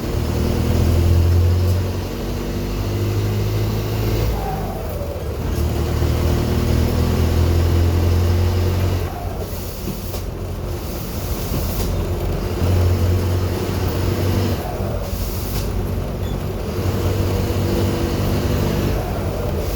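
Mercedes-Benz OF 1519 bus's OM 924 LA four-cylinder diesel engine running with a leaking, loose intake manifold, its speed rising and falling between about 1200 and 1600 rpm.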